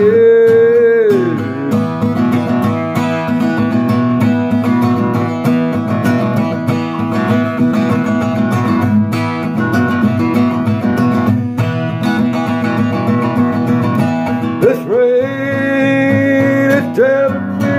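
Acoustic guitar strummed steadily through an instrumental break between verses. A man's voice holds a sung note at the start and comes back singing near the end.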